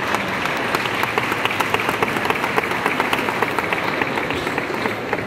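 Spectator crowd applauding, many hands clapping at once, easing off near the end.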